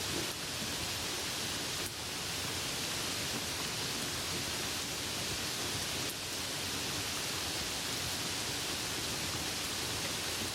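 Light rain falling: a steady, even hiss of many fine drops, with a few faint drip ticks.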